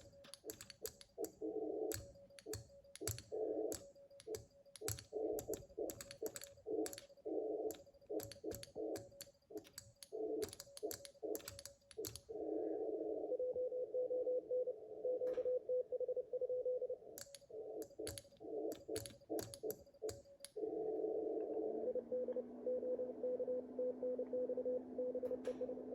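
Morse code (CW) tones near 550 Hz keyed on and off over shortwave band noise from an ICOM 7610 HF transceiver, with a steady string of fast dots from about halfway. Through the first half, quick sharp clicks like typing run over the tones.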